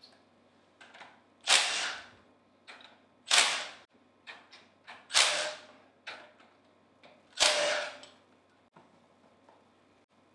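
Cordless impact driver hammering in four short bursts, about two seconds apart, backing out the head bolts on the side of a Hypro D50 diaphragm pump, with small clicks and clinks between the bursts.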